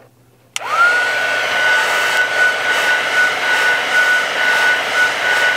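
Wagner heat gun switched on about half a second in: a click, then its fan motor spins up to a steady whine over a rush of blown air. It is heating the phone's edges to soften the screen adhesive.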